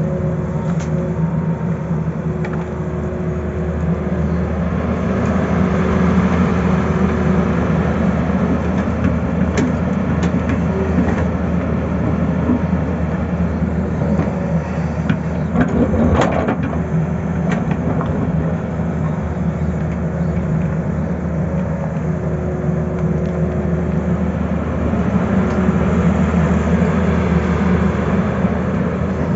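Tata Hitachi crawler excavator's diesel engine running steadily under digging load, swelling a little at times as the hydraulics work. About halfway through come a few knocks and scrapes as the bucket cuts into rocky soil.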